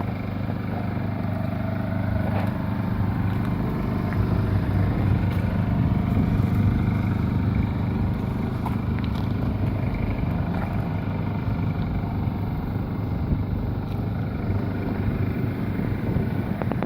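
Steady low machine drone with an even airy hiss over it, from spray-painting equipment running while clear coat is sprayed.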